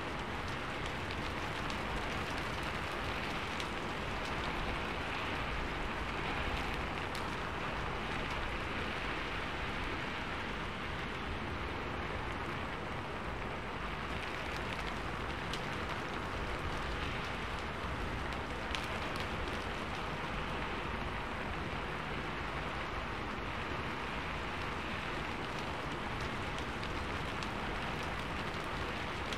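Steady rain falling, an even hiss with scattered sharper drop hits.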